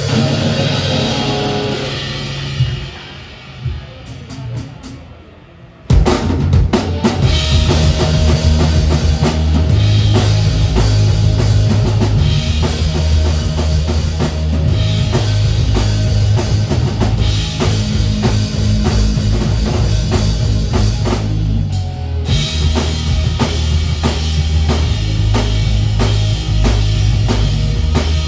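A crowd applauding, then a few scattered drum hits, then about six seconds in a live rock band comes in loud: drum kit with bass drum, snare and cymbals, bass and guitar playing a steady groove.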